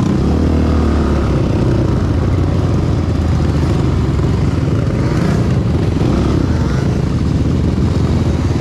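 Yamaha Banshee 350's twin-cylinder two-stroke engine running loudly through a DMC 916 aftermarket exhaust, its pitch swelling slightly a couple of times.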